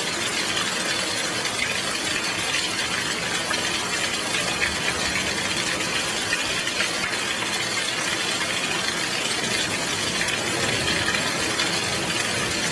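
Heavy rain falling steadily, a dense crackling patter of drops with no thunder.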